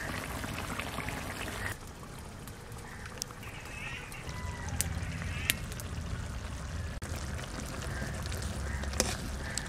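A spatula clicking a few times against a metal kadai and clay plate over a steady low background, with faint bird calls a few seconds in.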